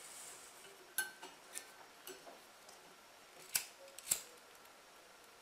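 A few sharp, faint clicks and taps, the two loudest close together about three and a half and four seconds in, as a lighter is handled and clicked at the new mantle of a Campingaz CV470 gas lamp to burn it in.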